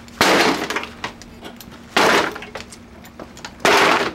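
Three hard kicks against a window air conditioner unit to knock a part loose, each a loud crash that dies away over about half a second, about a second and a half to two seconds apart.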